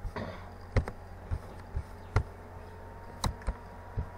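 About seven sharp, irregularly spaced clicks or taps over a steady low electrical hum.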